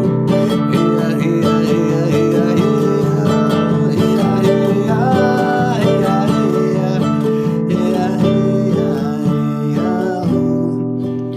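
Acoustic guitar strummed steadily through a chord progression, with a voice singing a melody over it.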